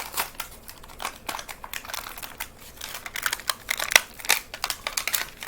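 Stiff plastic blister packaging of a die-cast toy car being pried and torn open: irregular clicks and crackles of plastic and card.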